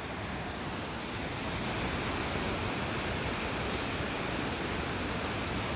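Waterfall rushing: a steady, even hiss of falling water that grows slightly louder over the first couple of seconds.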